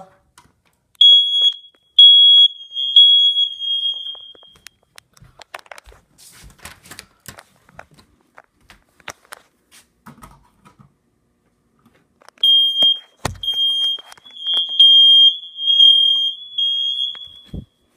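Household smoke detector's piezo horn sounding on test: a shrill, piercing tone in a few short pulses that run into a longer blast, heard twice about ten seconds apart. Handling knocks and rustles fill the gap between, with a sharp knock early in the second sounding.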